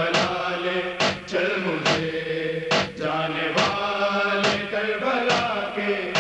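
Noha chorus of voices chanting a held, wordless refrain between verses, kept in time by sharp chest-beating (matam) slaps a little more than once a second.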